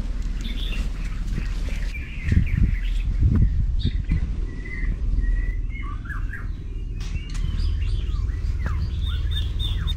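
Several birds chirping and calling, with short rising and falling notes throughout, over a steady low rumble. A few dull thumps from footsteps on the dirt trail come about two to three and a half seconds in.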